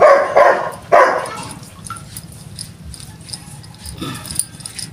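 A dog barking: a few short, loud barks in the first second or so, then quieter.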